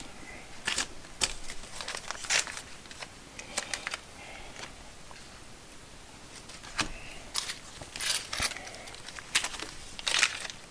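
Small retail packs of nuts and bolts being handled and set down: plastic packaging crinkling, with scattered sharp clicks of metal hardware.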